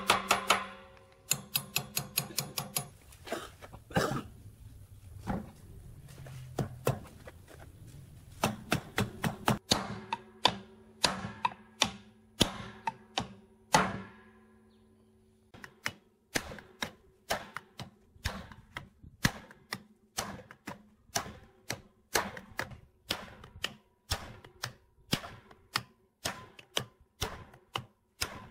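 Hammer blows on steel, first tapping a key into an electric motor's shaft keyway, then driving a cast-iron V-belt pulley onto the shaft through a wooden stick. The blows come in runs of taps, about three a second in the second half, with a ringing metal tone and a short pause midway.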